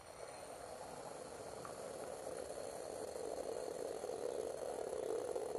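AeroPress fitted with a Fellow Prismo pressure-valve cap, pressed hard: coffee is forced through a very fine grind and the valve with a steady rushing hiss that grows slowly louder.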